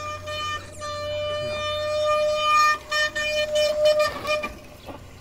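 Mountain bike disc brakes squealing in one steady high tone that holds through most of the ride and cuts out about four seconds in, over a low rumble.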